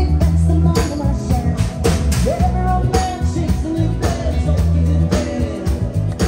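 Live rock band playing: a woman sings into a microphone over electric bass, guitar and a drum kit, with drum hits keeping a steady beat about twice a second.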